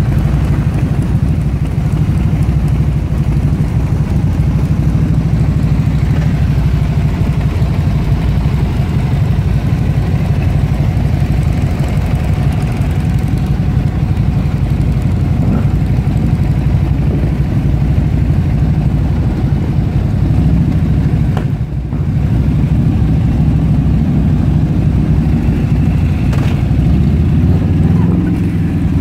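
Motorcycle engines idling and running close by, a steady low engine sound. Near the end it swells as a motorbike pulls out and rides past.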